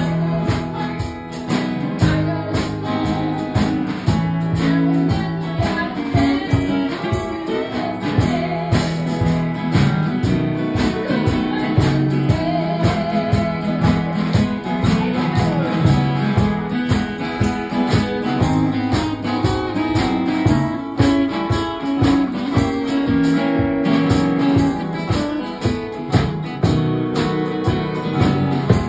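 Live music: a guitar played with a steady strummed beat.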